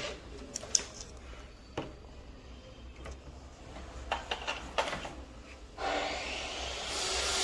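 Scattered clicks and knocks of hands handling wires and a plug on a workbench, over a low steady hum; about six seconds in, a steady hissing noise starts and grows louder.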